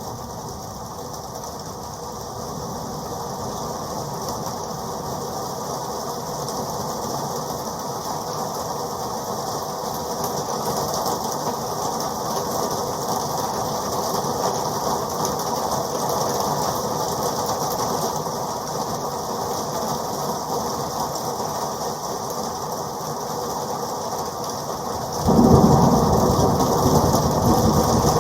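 Rain sound effect: a dense, steady patter that swells slowly, then turns suddenly louder and fuller about 25 seconds in.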